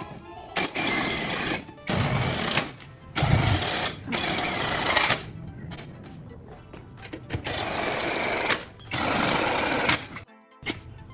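Metalworking power-tool noise in five separate bursts of one to two seconds each, with quieter music-only gaps between them.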